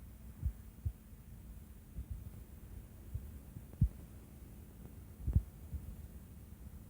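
Irregular dull low thumps, about half a dozen, the loudest a little under four seconds in and again past five seconds, over a steady low hum.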